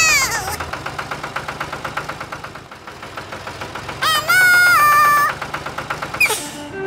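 Tractor engine running with a fast, even putt-putt rhythm. A loud rooster crow rings out over it about four seconds in, with the tail of another crow at the very start.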